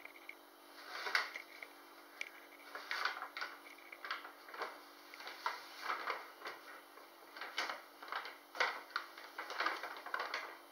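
Brown paper carrier bag crinkling and rustling in a string of short, irregular crackles as a cat pushes its way inside it.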